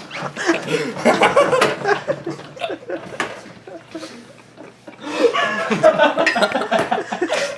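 Several people laughing and chuckling, quieter about four seconds in, then picking up again.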